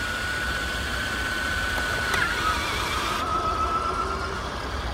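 Minn Kota Ulterra Riptide trolling motor's electric stow/trim drive running as the motor automatically stows, with a steady high whine that dips slightly in pitch a little over two seconds in. It is the newly replaced trim belt driving the tilt, and the belt works fine.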